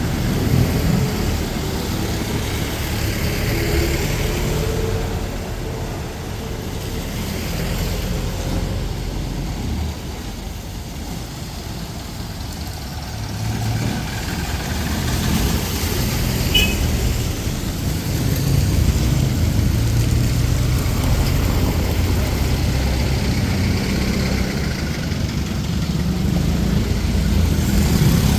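Street traffic: motor vehicle engines running and idling close by. It eases off for a few seconds in the middle, then builds again.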